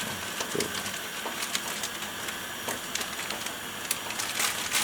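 Pot of ginger, pear and jujube tea at a hard boil, foaming up: a steady bubbling hiss with many small scattered pops.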